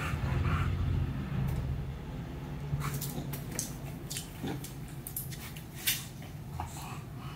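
English bulldog making low, drawn-out grumbling whines while begging, then a run of sharp clicks and scrapes from about three seconds in as it climbs up with its front paws onto a seated person's lap.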